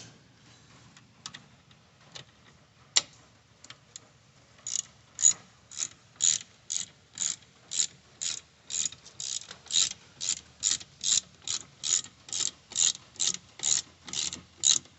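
Socket ratchet wrench clicking on a wheel hub mounting bolt: a few single clicks, then from about five seconds in steady back-and-forth strokes, roughly two a second.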